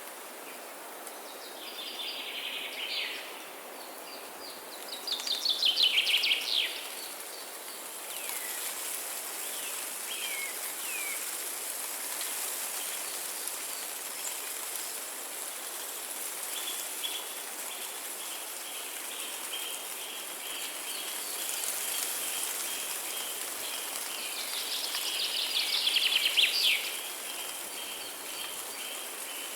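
Songbirds singing in a forest over a steady hiss of falling or running water. Several short trilled phrases come and go, and in the second half a long run of fast, evenly repeated chirps runs under the songs.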